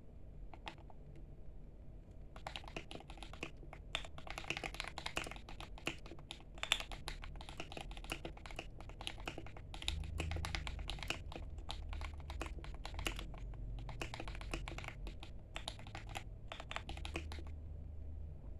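Typing on a KBDlite 67 mechanical keyboard with tape-modded, lubed Akko Vintage White linear switches and stock stabilizers. A few single keystrokes, then fast continuous typing from about two seconds in, with a couple of brief pauses.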